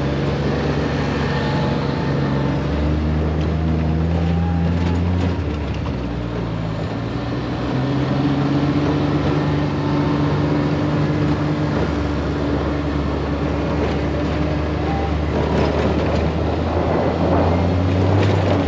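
Side-by-side UTV engine running under way on a dirt road, recorded from inside the open cab. Its note steps up and down several times as the throttle changes.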